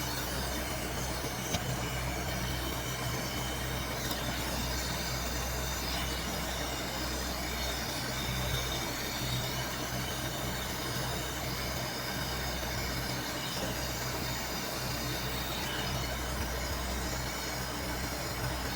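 Refrigerator compressor running with a steady low hum and a faint hiss.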